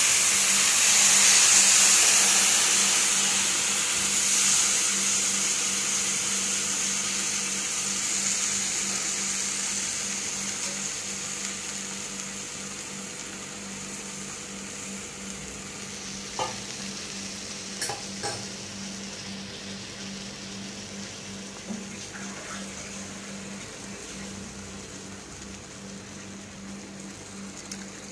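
Cold milk sizzling as it is poured into a hot nonstick frying pan of butter-fried carrot and pasta sauce mix, the sizzle dying away gradually as the pan cools under the milk. A few light knocks on the pan come about two-thirds through, over a steady low hum.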